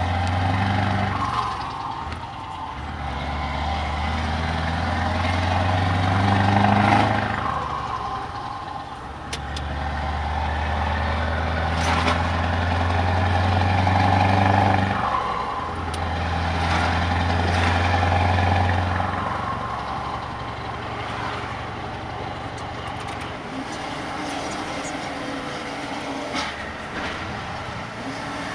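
Scania 164L's 580 hp V8 diesel heard from inside the cab, accelerating hard through several gears. The engine note breaks off briefly at each change, then settles to a quieter, steadier cruise in the last third.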